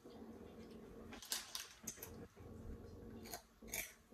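A few short, faint crinkles and crunches as a child handles a foil snack bag and eats puffed chips, over a low steady hum.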